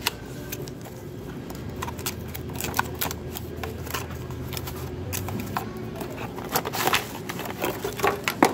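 A cardboard box being opened by hand: the flap and tabs scrape and crackle in irregular clicks. Near the end come a louder cluster of knocks and plastic crinkling as a jointed plastic flexible tripod and a bagged part slide out onto the tabletop.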